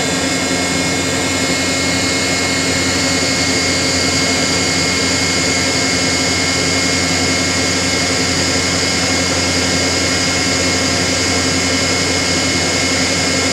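Ship's deck crane hydraulic power unit running steadily: a constant mechanical drone with several steady whining tones.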